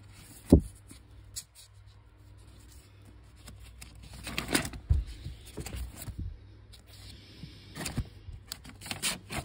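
Vinyl records in paper sleeves being flipped through in a box: rustling and sliding paper, with a sharp knock about half a second in and further swishes and taps later on.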